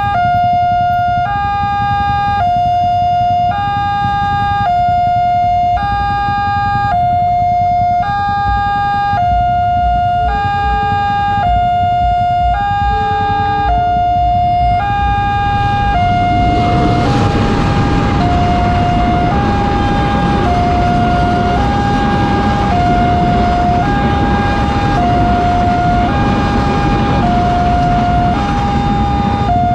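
Railway level-crossing alarm sounding a two-tone electronic warning that steps between a lower and a higher pitch about once a second. About halfway through, the rumble of a passing train rises under the alarm and stays.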